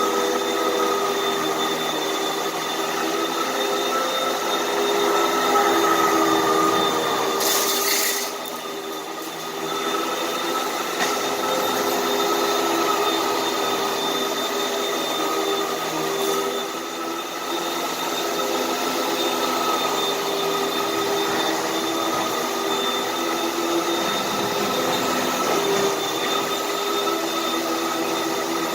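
Hoover vacuum cleaner running steadily, its motor whining over a rushing hiss as it sucks up dirt from carpet, dipping briefly about eight seconds in.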